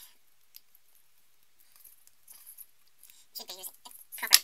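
Pliers crimping a blue insulated crimp terminal onto a thin wire: faint handling scrapes, then a burst of squeezing and scraping that ends in one sharp click near the end.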